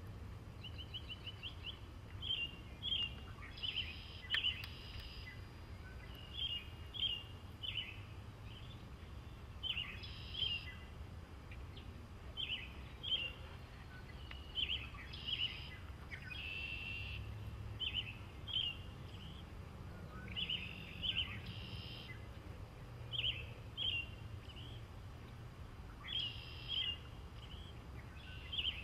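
Small birds chirping: short high notes in quick groups of two or three, recurring every second or two, over a low steady background rumble.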